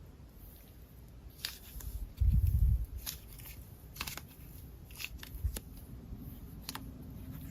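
Slime being squished and poked by hand, giving scattered crunchy clicks and pops at irregular intervals. A louder low thump comes just after two seconds in.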